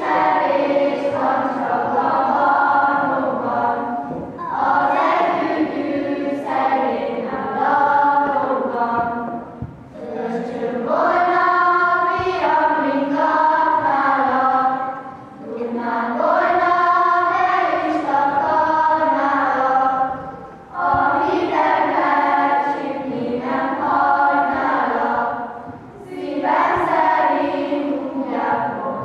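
A choir singing a Hungarian nativity-play Christmas song in phrases of about five seconds, with short pauses for breath between them.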